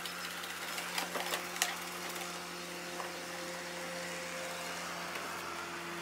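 Robot vacuum cleaner running as it drives off its charging dock: a steady motor hum, with a few sharp clicks between one and two seconds in.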